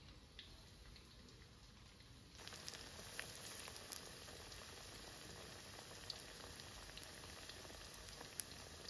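Food deep-frying in hot oil in a wok: a steady sizzle that starts abruptly about two seconds in, with scattered pops and crackles.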